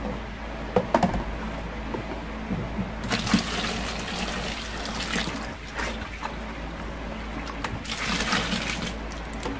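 Liquid STPP solution poured from a plastic jug into a plastic bucket of soap mixture, splashing into it in two pours. Two light knocks come about a second in.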